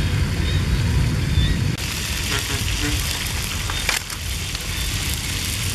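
Oil sizzling in a steel wok over an open wood fire, with the fire crackling in short clicks. A low rumble dominates the first couple of seconds, then gives way to the sizzle and crackle at a cut.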